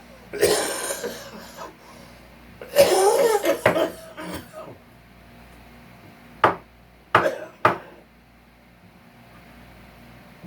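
Staples and nails being worked out of salvaged couch wood with hand tools: two longer rough, scraping sounds in the first half, then three sharp knocks of the tool on the wood.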